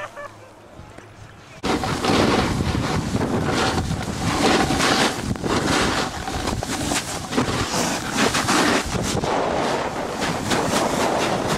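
Loud, steady rush of wind buffeting the microphone while snowboarding downhill, mixed with the board sliding over snow. It starts suddenly about two seconds in.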